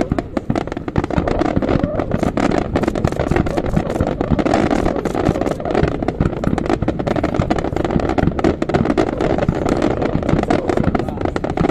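Fireworks display: a dense barrage of aerial shells and crackling effects bursting in rapid, overlapping succession, with no pause between the bangs.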